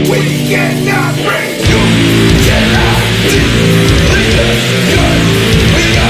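Heavy metal music with distorted electric guitar; the full band with bass comes in hard about a second and a half in.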